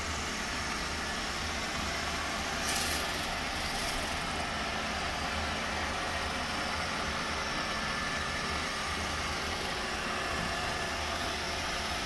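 Roomba robot vacuum running, a steady whir of its vacuum motor and brushes, with a brief louder rustle about three seconds in.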